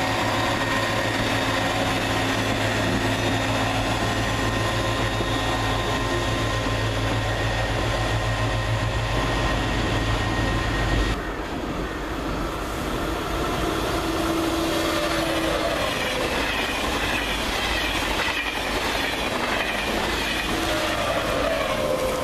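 The SNCF V5 rail-inspection vehicle running past close by, its diesel engine a steady low hum. About halfway through, a sudden change to a TGV Duplex passing: wheels on rails with sliding tones.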